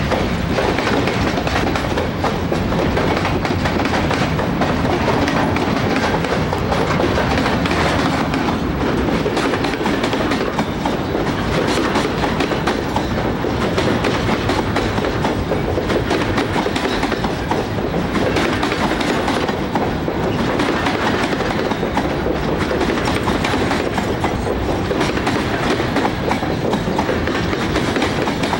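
Freight train container cars rolling steadily past, a loud continuous rumble of wheels on rail with wheels clicking over the rail joints.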